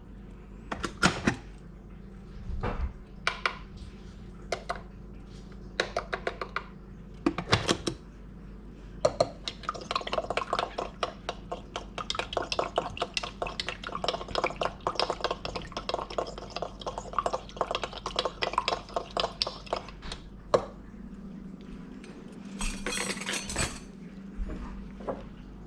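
Kitchen clatter of dishes and utensils: scattered clinks and knocks, then about ten seconds of rapid, close-set clicking of a utensil against dishware. A short rush of noise comes near the end.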